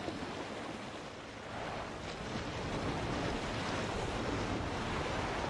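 Sea waves washing with wind, a steady rushing noise that grows a little louder about a second and a half in.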